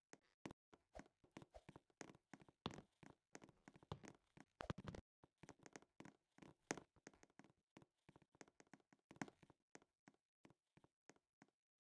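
Faint, irregular taps and clicks, several a second.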